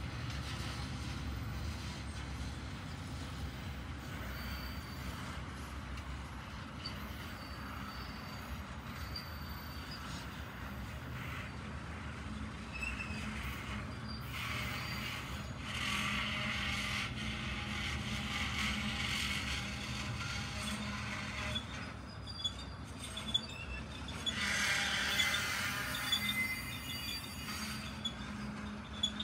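Freight train of autorack cars rolling past: a steady low rumble of wheels on rail, with stretches of high wheel squeal about halfway through and again near the end.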